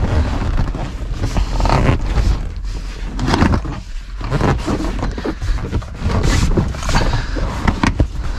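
Irregular scraping, rustling and knocks of car interior trim and rear-seat parts being handled and worked loose.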